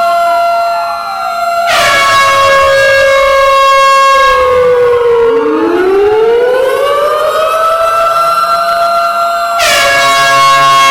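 Air horn blasts layered over a siren. One loud blast starts suddenly about a second and a half in and is held for several seconds. A second blast comes near the end. Underneath, the siren's pitch slides down and then winds back up.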